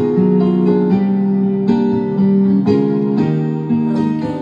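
Worship-style keyboard sound from Sunday Sounds, played from an Arturia KeyLab controller: held piano-like chords that change about once a second.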